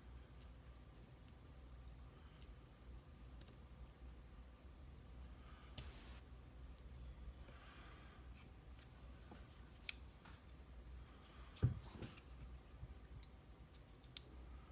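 Faint, scattered clicks and light scrapes of small metal lock parts being handled while the cylinder is taken apart, with a sharper knock about twelve seconds in.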